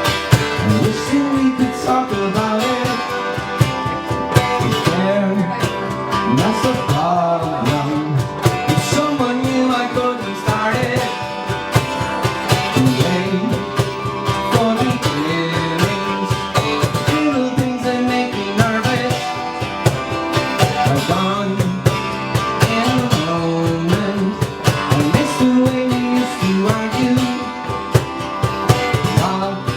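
Live band music: strummed acoustic guitar with a sliding melody line over it.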